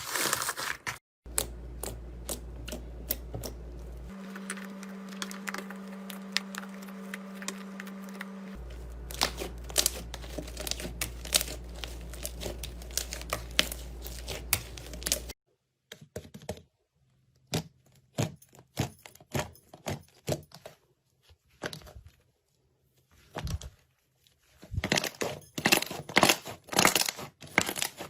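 Slime being squeezed, stretched and poked, with dense crackling and popping clicks. A steady low hum sits under the crackle for roughly the first half, then stops, leaving sparser pops that grow busier near the end.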